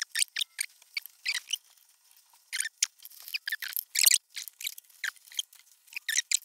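Handling noise: a quick, irregular run of short scratches and rustles from hands working with cables, a cloth measuring tape and paper, with a faint squeak near the start.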